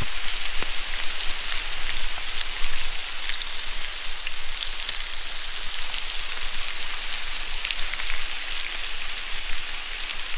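Bacon and diced hash browns frying on a Blackstone flat-top griddle: a steady sizzle dotted with fine crackles and pops.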